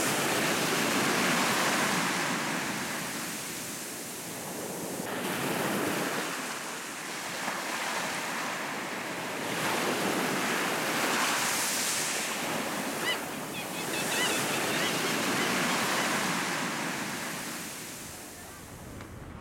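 Small sea waves breaking and washing up a coarse-sand beach. The surf swells and eases every few seconds.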